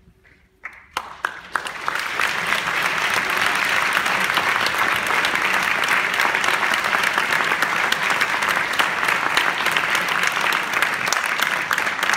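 Audience applause: a few scattered claps just under a second in, quickly building into dense, steady clapping that holds for the rest of the time.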